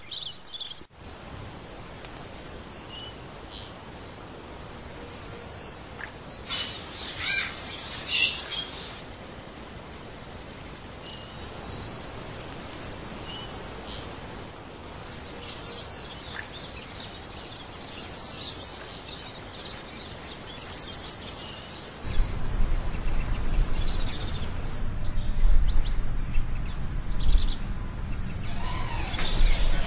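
A bird calling over and over: a short, very high trill about every two to three seconds, with brief whistled notes between. A low rumble comes in about three-quarters of the way through.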